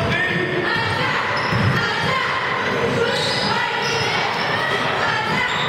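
A basketball bouncing a few times on a hardwood gym floor during play, with people's voices behind it.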